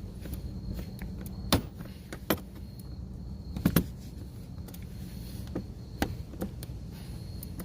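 Scattered sharp clicks and knocks, about six of them with a double knock midway, as a plastic under-car trim panel and its clips are handled and pushed into place on a car, over a steady low hum.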